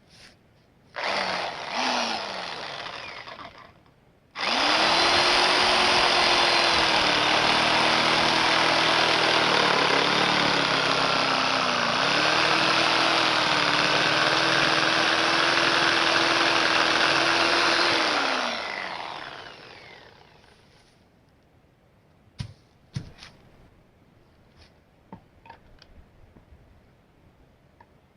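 Porter-Cable PCE360 7.5 A corded reciprocating saw: a brief trigger blip that winds down, then a steady run of about fourteen seconds while it saws, its motor pitch dipping a couple of times, before winding down with a falling whine. A few light knocks follow near the end.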